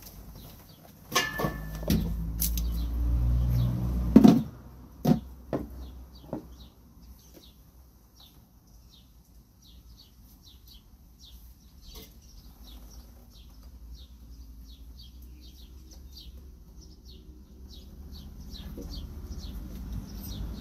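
Knocks and clatter of plastic gold pans being handled over a tub of water in the first few seconds, loudest about four seconds in. Throughout, a small bird chirps repeatedly in short falling notes, a few a second.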